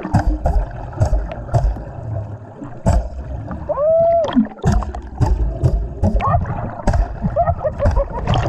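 Muffled underwater sound in a river: low rumbling thumps and scattered sharp clicks, with a short pitched whine that rises and falls about four seconds in.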